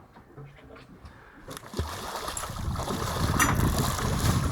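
Rushing wind and sea noise on a small fishing boat, coming in about a second and a half in and growing louder, with a sharp click near the end.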